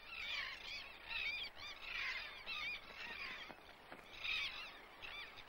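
A crowded seabird colony calling: many short, harsh, arched calls from numerous birds overlapping in a continuous chorus.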